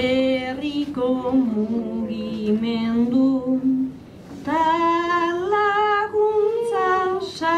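A woman singing an unaccompanied Basque bertso (improvised sung verse) solo, in long held notes to a slow melody. Two sung lines, with a short breath pause about four seconds in.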